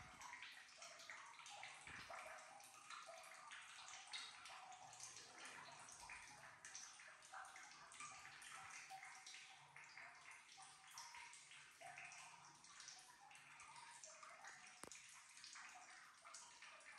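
Near silence: faint, uneven room hiss, with a couple of faint ticks.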